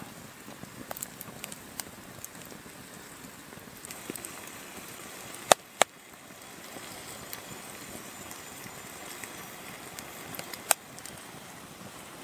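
Wood campfire crackling: scattered small pops and a few sharp cracks, two close together about halfway through and one more near the end, over a steady soft hiss.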